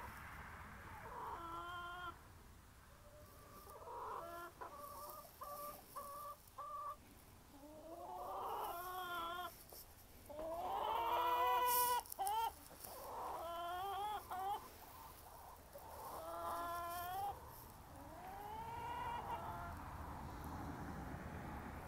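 Backyard hens clucking and calling: a quick string of short clucks about five seconds in, then drawn-out calls that rise and fall every few seconds, the loudest about twelve seconds in.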